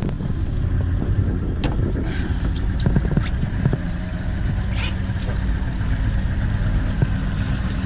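A boat's engine running steadily with a low drone, with a few light clicks and knocks scattered through it.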